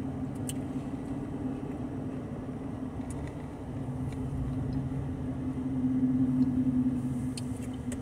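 Steady hum of a car running, heard from inside the cabin, with a few faint clicks.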